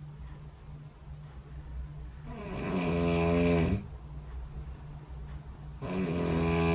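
A person snoring in sleep: two long snores about three and a half seconds apart, each building in loudness for about a second and a half before cutting off, over a low steady hum.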